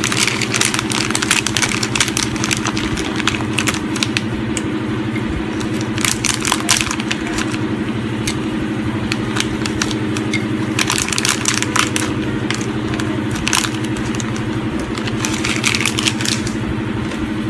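Dry cinnamon bark pieces being placed by hand onto coarse salt and fish in a slow cooker pot, crackling and crunching in several spells. Under it runs a steady low mechanical hum.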